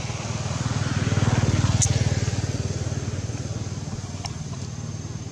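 A motor vehicle's engine running as it passes: a low, even engine note that grows louder about a second in and then slowly fades away.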